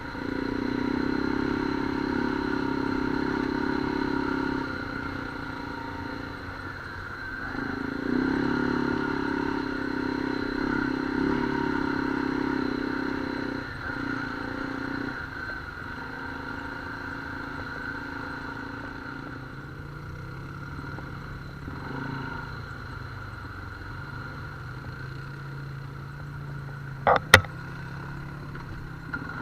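Off-road vehicle engine running on a trail ride, its note changing with throttle: louder through the first half, then steadier and quieter. Near the end there is a sharp click or knock.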